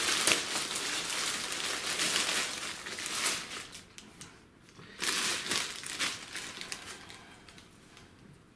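Clear plastic packing bag crinkling as it is worked off a part and pushed down around it. It is loudest for the first few seconds, with one more short burst about five seconds in, then it dies away.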